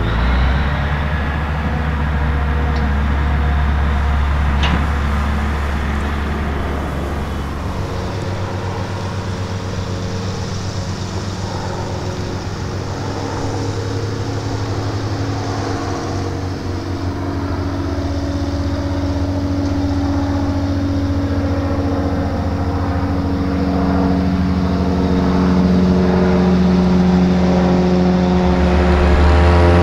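Single-engine propeller towplane droning steadily overhead while it tows a glider under power. The engine note shifts about eight seconds in and grows slightly louder near the end.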